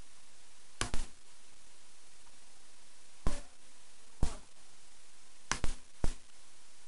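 Sharp metallic clicks from a brass Yale rim cylinder lock being worked in the hand: about six, at uneven intervals, a couple of them in quick pairs.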